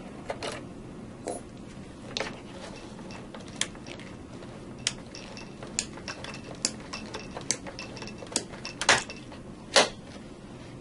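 Manual charging handle of an Eaton Series NRX power circuit breaker being pumped, ratcheting with a click about once a second as the closing spring is charged. The last two clicks near the end are the loudest.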